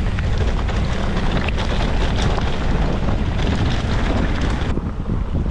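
Heavy wind buffeting the action-camera microphone, a loud, steady rush strongest at the low end, with scattered small clicks and rattles. About three-quarters of the way through, the high end of the rush drops away suddenly.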